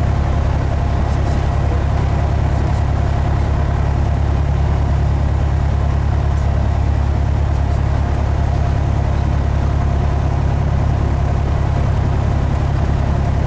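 Cessna 172's piston engine and propeller running at a steady, unchanging pitch, a loud drone heard from inside the cabin.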